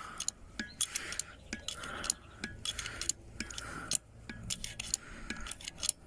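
Metal clicks and clanks in a steady rhythm, about once a second, from a jack being pumped to pull a buried steel pipe out of the ground by a chain.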